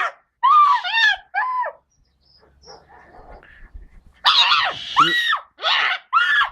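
A series of loud, shrill screams: three short ones, then, after a quieter gap of about two seconds, four more in quick succession.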